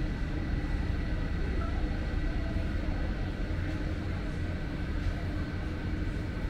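Steady city street ambience: a low rumble of traffic with a few faint steady hums, no single event standing out.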